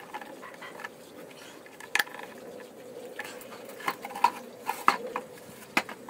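Scattered light knocks and clicks of wooden parts and a drill being handled and set down on a wooden table, over a faint steady hum.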